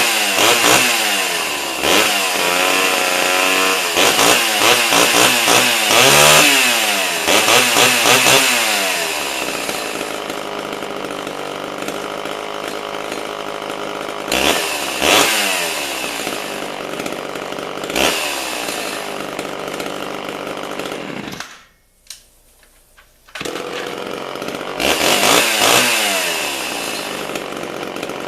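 Homelite Big Red two-stroke chainsaw running and being revved repeatedly, its pitch sweeping up and down with each throttle blip. About 22 seconds in it goes almost silent for under two seconds, then comes back abruptly, revving again.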